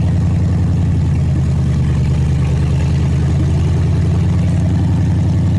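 Ford Coyote 5.0 V8, swapped into an F-150, idling steadily just after its first start. The ignition key is not shutting it off, so the fuel pump's power has to be cut to stop it.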